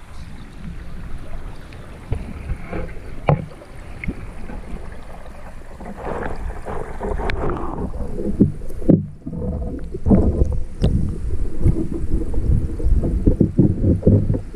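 Stream current heard from a submerged camera housing: a muffled low rushing and gurgling with scattered sharp knocks, turning into a busier run of irregular low sloshing pulses from about eight seconds in.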